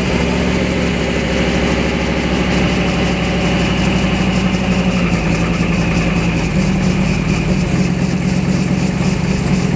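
Cummins turbo-diesel engine of a Dodge Ram pickup running at a steady idle.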